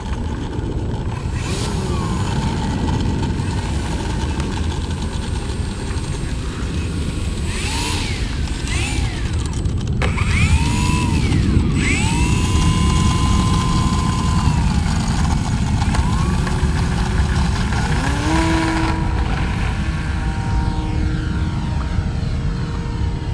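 Electric motor and propeller of a Top Flite P-40 RC model plane whining, the pitch gliding up and down with the throttle; it rises sharply about ten seconds in and holds high as the plane takes off and climbs away. A steady low rumble runs underneath.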